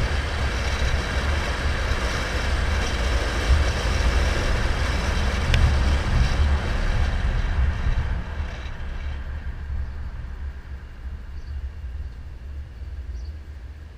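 Wind rumble and road noise on a car-mounted GoPro as the car drives through a road tunnel. The noise drops off from about eight seconds in, as the car leaves the tunnel for the open air.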